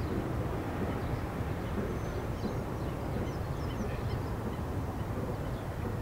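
Steady low outdoor rumble of field-recording background noise, with a few faint short high bird calls in the middle.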